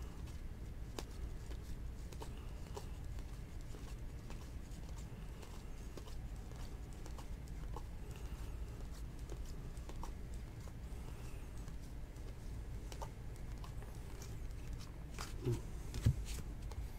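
Trading cards being flipped through by hand: faint, scattered flicks and clicks of card stock over a steady low hum, with two soft thumps near the end as cards are set down on the table.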